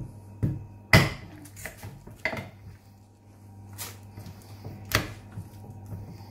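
Kitchen knife knocking and tapping on a wooden cutting board while raw chicken is cut and trimmed: a handful of sharp knocks, the loudest about a second in, over a steady low hum.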